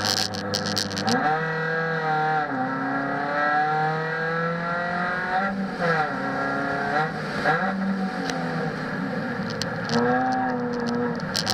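Proton Savvy's 1.2-litre Renault D4F four-cylinder engine driven hard, its revs climbing and dropping back several times.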